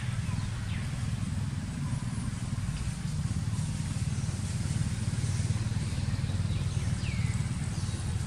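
Steady low rumble of an idling engine. A few faint, short, high falling chirps sound over it.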